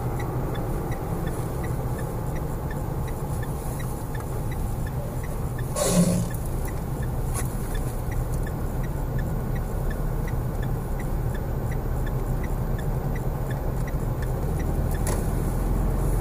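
Steady road and engine noise heard inside a moving car's cabin, with a single sharp knock about six seconds in and a faint, evenly spaced ticking.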